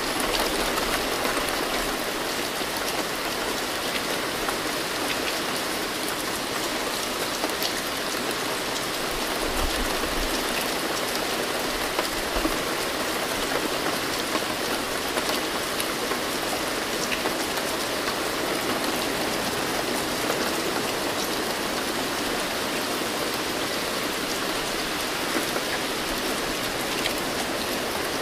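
Steady rain falling, a dense even hiss sprinkled with fine drop ticks.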